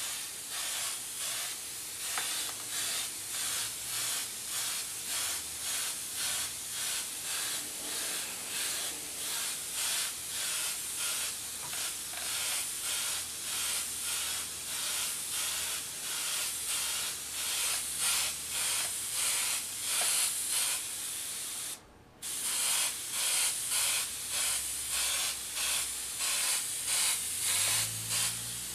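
Airbrush spraying paint: a steady hiss of air that pulses about twice a second, stopping for a moment about three-quarters of the way through.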